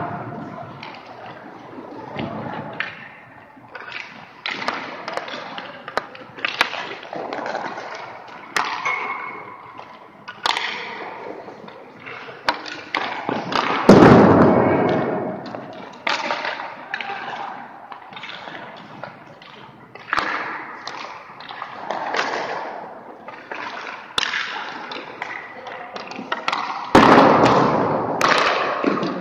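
Ice hockey goalie practice in an echoing rink: irregular thuds and clacks of pucks, sticks and pads, with skates scraping the ice. Two louder crashes, about halfway through and near the end, ring on for a second or two.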